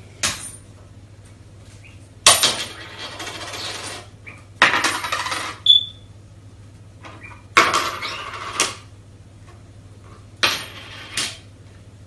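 A tennis ball rolling and knocking across a hard, glossy tabletop as a budgerigar pushes it. The sound comes in separate bursts with sudden starts: a short knock near the start, then four rolls of about a second each, with quiet between them.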